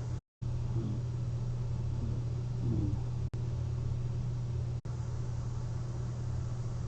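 Light snoring of a person asleep on their back wearing a CPAP mask: faint short snores about a second in and again near the three-second mark, over a steady low hum.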